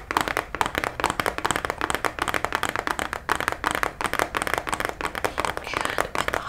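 Fast fingernail tapping on a cardboard lip gel box held right at the microphone: a rapid, unbroken run of sharp taps, many a second.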